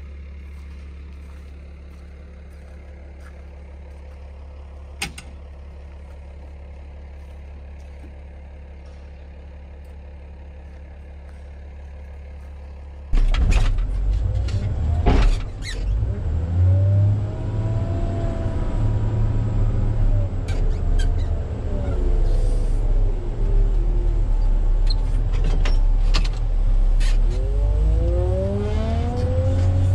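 Wheel loader's diesel engine heard from inside its cab, revving up and down as the bucket digs into a silage clamp and lifts; the pitch rises and falls with the revs, with a few knocks as the bucket bites. Before that, for about the first thirteen seconds, a steady low engine hum.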